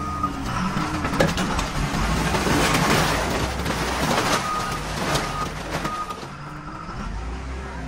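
Excavator engine running under hydraulic load as the machine swings, with a loud stretch of clattering, crashing noise in the middle and short beeps of a warning alarm near the start and toward the end.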